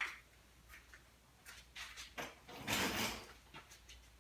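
Quiet handling sounds: a sharp click at the start, a few light knocks, and a short scraping rustle about three seconds in, as a hand works over the hood sheet metal.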